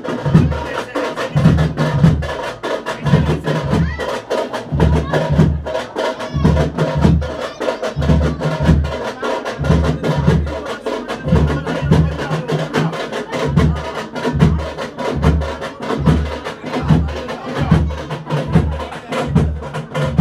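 Live festival drumming: a deep drum beats a steady rhythm of about two strokes a second, with fast, sharp stick strikes over it and a steady held tone underneath.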